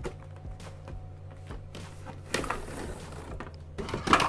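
Keyboard box and its packaging being opened and handled: a scraping rustle about two seconds in, then a louder cluster of knocks and rustles near the end.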